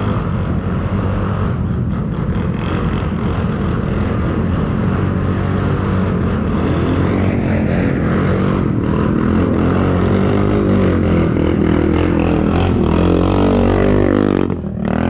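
ATV engine running and revving while the rider works through rough ground. The pitch rises and falls through the second half, and the sound drops out briefly near the end.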